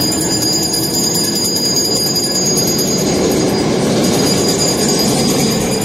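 New York City subway train running on the track: a loud, steady rumble of wheels and cars with a thin high whine held above it.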